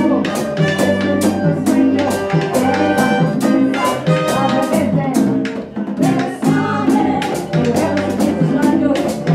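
Live band playing a merengue, drums and percussion keeping a fast, steady beat under keyboard and voices.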